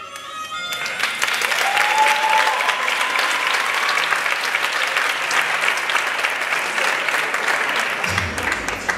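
Audience applauding after the music cuts off in the first second, with a short rising cheer about two seconds in.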